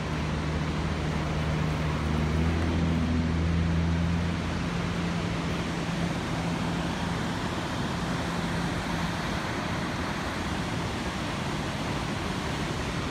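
Steady rushing roar of floodwater pouring through and over the dam at Bracebridge Falls, the river in record flood. A low steady hum sits under it, strongest over the first four seconds, then fades away by about two-thirds of the way through.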